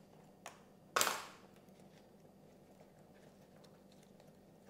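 Small plastic clicks and handling noise from servo lead connectors being worked onto a receiver's pins: a light click about half a second in, then a louder, sharper click with a short rustle about a second in, then faint ticks.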